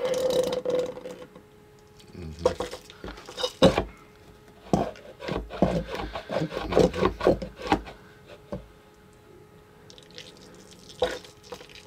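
GAK slime squeezed by the plunger of a Nickelodeon GAK Frrrrt Bucket, forcing trapped air out as fart noises: one held, steady toot for about the first second, then a run of short, irregular sputtering farts, a quieter stretch, and a couple more near the end.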